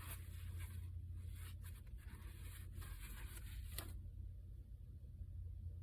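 Light scratching and clicking as small carburetor parts are handled and worked on, stopping about four seconds in, over a steady low hum.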